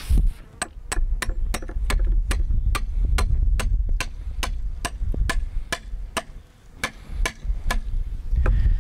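Hammer driving a nail into the joint of a wooden fence post and brace rail: a long run of quick, even blows, about three a second, breaking off near the end with one last strike.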